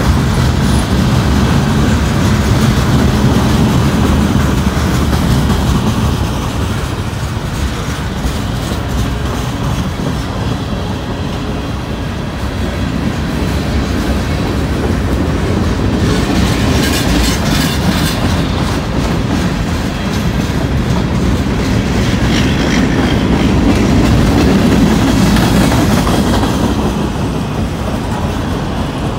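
Freight train cars rolling past close by: a steady rumble of steel wheels on rail with a continuous clickety-clack of wheels over rail joints, and sharper, higher rattling around the middle.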